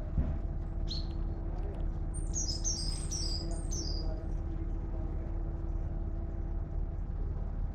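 Small songbird calling: a single high chirp about a second in, then a quick run of high, falling chirps from about two to four seconds, over a steady low hum.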